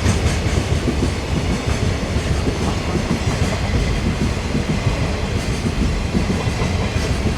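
A train running through the station, with a steady, loud rumble of wheels on the rails.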